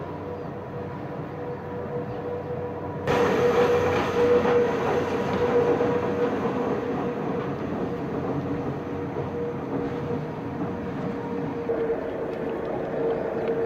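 Pilatus Railway electric cog railcar climbing its rack line: a steady running hum with a constant-pitch whine from the drive, jumping louder and fuller about three seconds in.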